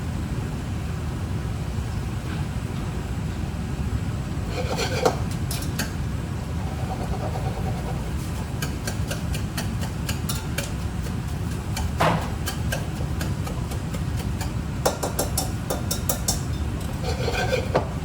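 Kitchen cooking sounds: a steady low rumble with scattered crackles and clicks, and a few louder knocks of utensils, about three in all.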